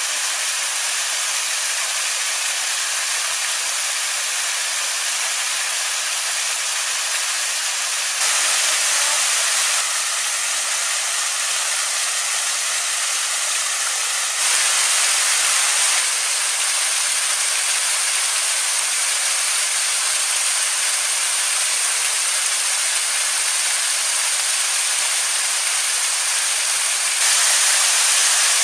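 Loud, steady hiss of rushing noise with no distinct events, stepping abruptly up and down in level a few times.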